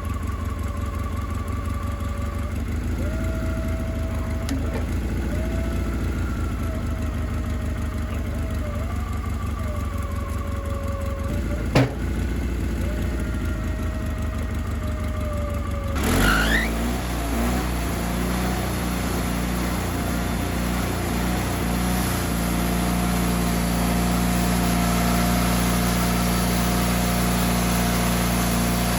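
Wood-Mizer LT40 band sawmill's engine running steadily, with a wavering whine over it and a single sharp knock just before the middle. About halfway through the sound changes abruptly, with a brief rising whine, and the mill then runs on louder and fuller.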